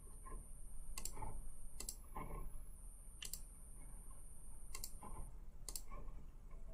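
Computer mouse clicking faintly: about five single sharp clicks, a second or so apart.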